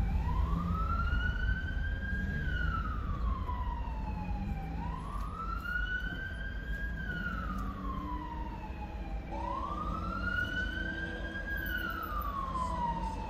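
Emergency vehicle siren sounding a slow wail, rising and falling about every four and a half seconds, three times, over a steady low rumble of traffic.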